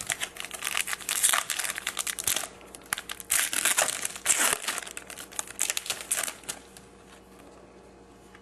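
Foil trading-card pack wrapper being torn open and crinkled in the hands, a dense crackling that dies away about six and a half seconds in, leaving only faint light handling noise.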